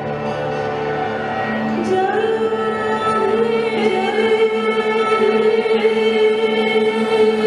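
Live rock band playing the opening of a song: many notes held steadily, with pitches sliding upward twice, the music slowly getting louder.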